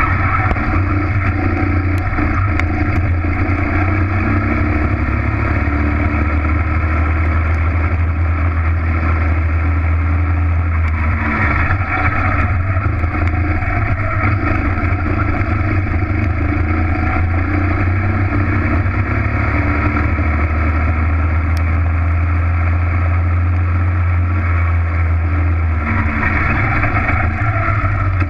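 Racing kart engine running at speed, heard close up from on board: a loud, steady drone throughout, briefly brighter about a third of the way in and again near the end.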